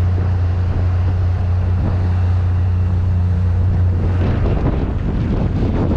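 Zodiac boat's outboard motor running with a steady low drone, with wind buffeting the microphone. About four seconds in, the engine drone drops away and the wind noise takes over.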